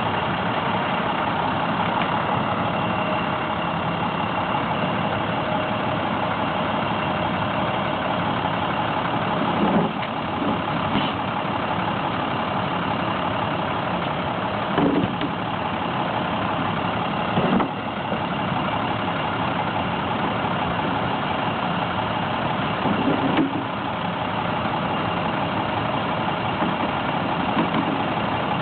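Truck engine running steadily as the truck drives slowly, with brief louder bumps about 10, 15, 17 and 23 seconds in.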